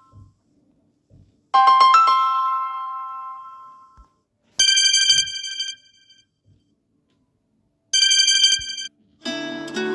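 Phone ringtones played one after another, with silence between: a bell-like chime about one and a half seconds in that rings out and fades, then a short high chime twice, about three seconds apart. A music ringtone starts near the end.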